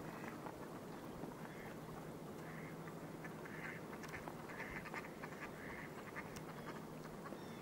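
Mallard ducks quacking, a short call roughly once a second, faint and over a steady low hum.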